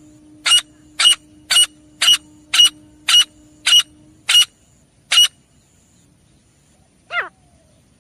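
Grey francolin calling: a run of about nine sharp, loud notes at roughly two a second, then a pause and one downward-sliding call near the end.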